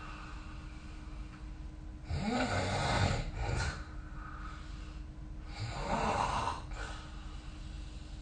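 A person snoring in sleep: two snores about three and a half seconds apart, each lasting about a second and a half, over a faint steady hum.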